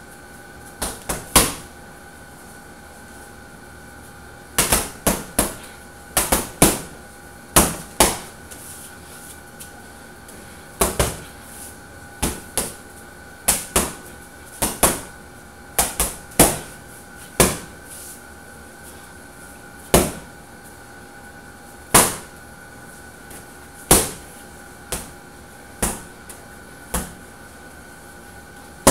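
Boxing gloves punching a hanging heavy bag: sharp slaps in quick combinations of two to four hits with short pauses between, then single punches about two seconds apart in the last third. A faint steady hum runs underneath.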